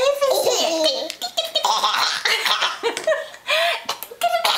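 Toddler laughing, a run of high-pitched giggles and belly laughs in short bursts.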